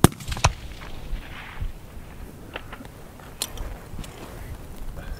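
Rifle shots on a fullbore target range: a sharp crack right at the start, another about half a second later, then lighter sharp clicks around three seconds in.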